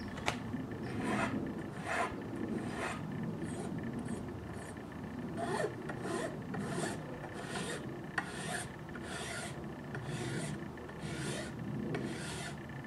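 Hand file rasping along the edge of Formica laminate in steady back-and-forth strokes, about three strokes every two seconds. It is filing the slight overhang (lippage) of the laminate flush at the joint.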